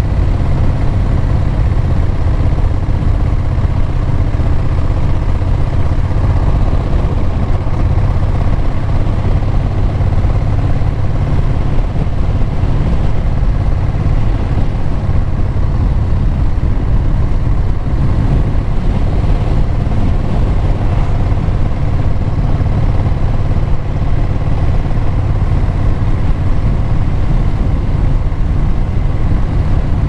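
Motorcycle engine running steadily at cruising speed, a constant low drone mixed with wind and road noise.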